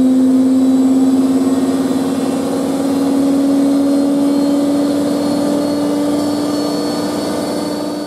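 Casatta by Hotpoint WM63 Aquarius 1100 washing machine spinning: a steady motor whine that rises slowly in pitch.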